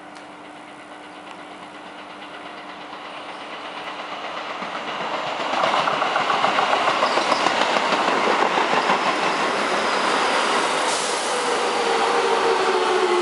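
Keio 8000 series electric train arriving at the station. Its rumble grows over the first five seconds, then turns loud with rhythmic wheel clatter as the cars run past. Near the end a motor whine falls in pitch as the train slows.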